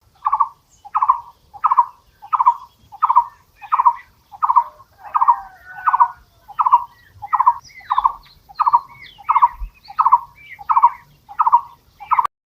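A barbet calling: a low hooting call repeated steadily about once every 0.7 seconds, each call a quick rapid-fire run of notes. Fainter higher chirps from other birds come in the middle. The calling cuts off abruptly near the end.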